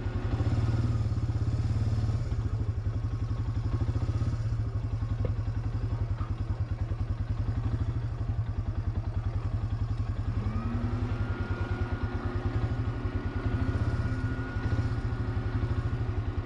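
Suzuki 400 ATV's single-cylinder engine running under way with a steady beat. About ten seconds in its pitch rises and holds, then drops near the end.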